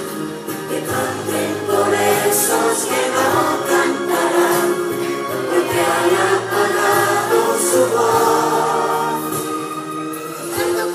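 Children's choir singing together over musical accompaniment, with sustained low notes underneath.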